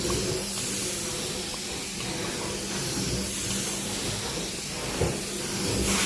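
Carpet-cleaning machine running with a steady hiss over a low hum, with a brief knock about five seconds in.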